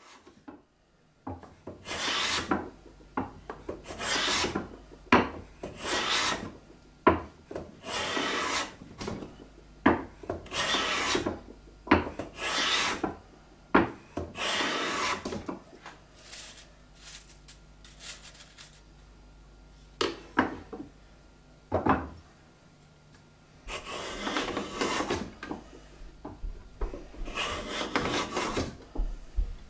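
Hand rebate plane cutting a rebate along the edge of a hardwood piece, each push taking a shaving. The first half is a run of rasping strokes about every two seconds; after a pause with a few sharp knocks, more strokes come near the end.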